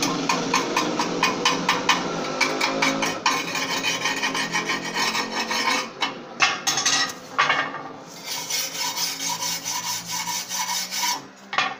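Steel wire brush scrubbing in quick back-and-forth strokes over a fresh 6013-electrode weld bead on 14-gauge rectangular steel tube, clearing off the slag crust. There are a few sharper knocks about halfway through.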